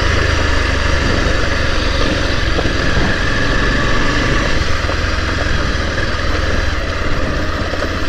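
Motorcycle engine running steadily while the bike is ridden slowly along a dirt track, a constant low rumble with no revving.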